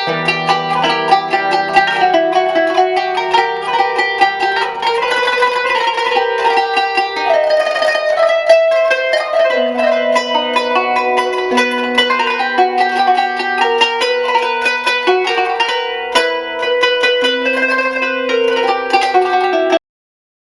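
Background music played on a plucked string instrument, a quick run of picked notes, cutting off abruptly near the end.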